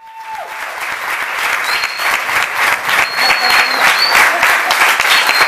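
Audience clapping and applauding, fading in from silence and building up, with a few brief high thin tones over the clapping.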